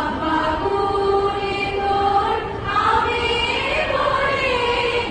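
A large group of schoolgirls singing together in unison, a slow melody with long held notes.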